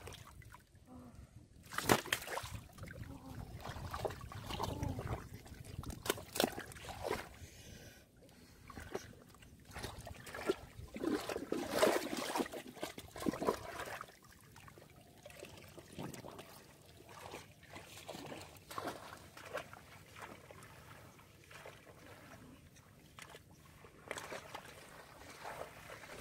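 Hands splashing and sloshing through shallow muddy water, with irregular splashes and trickles of water running off. The splashing is busiest in the first half and gets quieter and sparser after about fourteen seconds.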